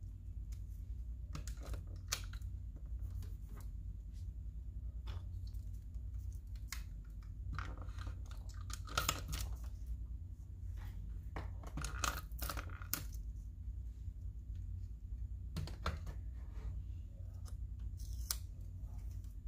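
Paper and stationery handled up close: scattered short rustles and taps, with two longer stretches of paper tearing about eight and twelve seconds in, over a steady low hum.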